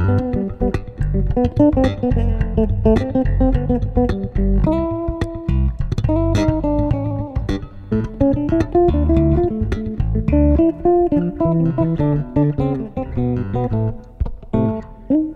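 Two electric basses playing a carnival tune: a low bass line under a plucked melody in the upper register, some notes sliding into the next.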